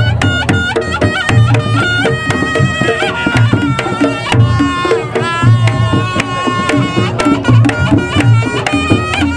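Reog Ponorogo ensemble music: kendang drums beating a steady, busy rhythm, with sharp percussion strokes under a reedy slompret melody that slides and bends in pitch.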